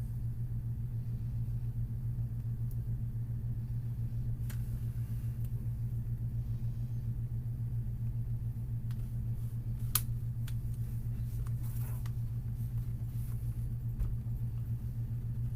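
A steady low hum, with a few scattered sharp plastic clicks as a pry pick works the laptop's snap-in screen bezel clips loose. The sharpest click comes about ten seconds in.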